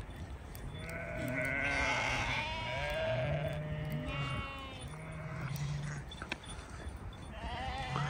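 A flock of sheep bleating, several animals calling over one another, with a short lull about six seconds in before the bleating picks up again near the end.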